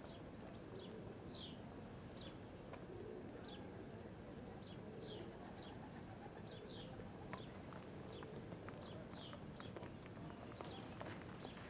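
Faint birdsong: short, high, downward chirps repeating irregularly about once a second.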